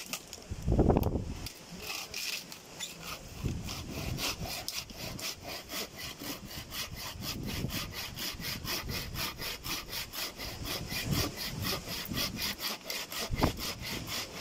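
Hand saw working back and forth in quick, even strokes, about five a second, with a louder low thump about a second in.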